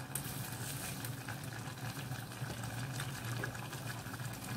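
Pot of coconut-milk curry with bamboo shoots and tofu simmering on the stove: a steady bubbling with many small scattered pops.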